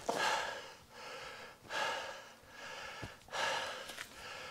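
A man breathing hard and audibly, in and out in a steady rhythm of about one breath every second and a half: winded from crawling in on hands and knees.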